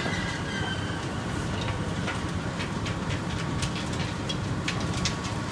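Sotetsu 12000 series electric train rolling slowly into the platform with a steady low rumble. A run of sharp, irregular clicks comes from about one and a half to five seconds in.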